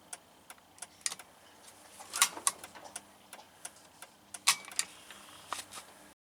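Vehicle turn signal flasher clicking faintly, a few clicks a second, with two louder clicks about two and four and a half seconds in; the signals are working again after the connector repair. The sound cuts off abruptly just before the end.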